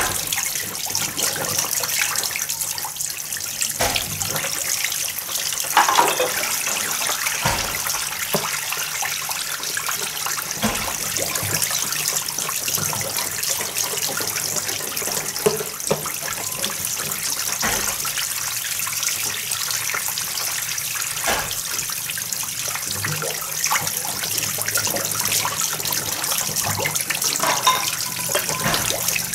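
Running water splashing steadily into a plastic basin as bowls are hand-washed and rinsed, with occasional short knocks of dishes being handled.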